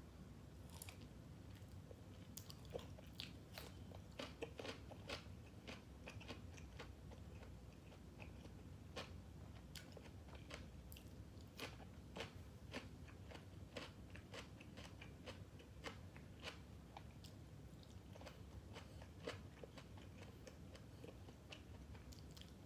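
A person chewing and biting grilled pork balls and crisp fresh vegetables close to the microphone, with many sharp, irregular crunches.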